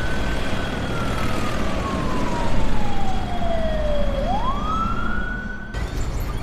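Emergency-vehicle siren wailing: its pitch falls slowly for about four seconds, then sweeps quickly back up, over a steady low traffic rumble. The sound cuts off abruptly near the end.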